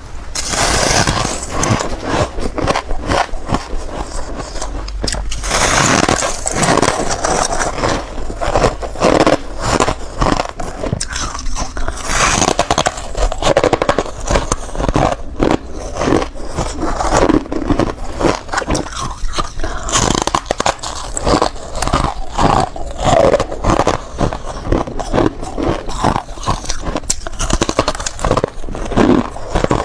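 Close-miked biting and chewing of soft white ice chunks: rapid, dense crunching and crackling, bite after bite.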